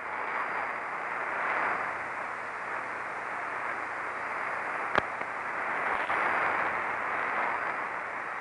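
Shortwave radio static: a steady hiss of off-air reception, with one sharp click about five seconds in.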